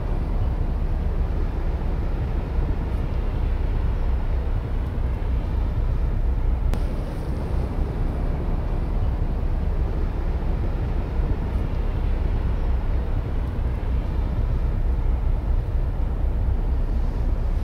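Steady low rumble of a large ro-pax ferry's engines under way as it departs.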